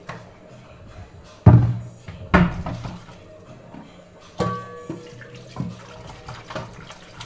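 Metal cooking pot knocking against a steel kitchen sink during washing, with water running. There are three loud clanks, and the last one rings on briefly.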